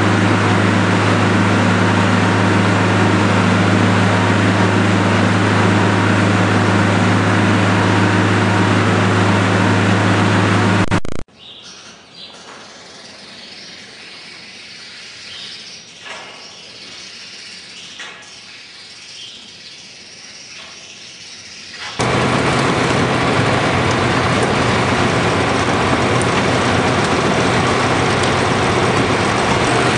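Penta TMR feed mixer machinery running steadily with a low hum. About a third of the way in it cuts off suddenly to a much quieter stretch with a few faint high chirps. A steady machine sound comes back about two-thirds of the way through.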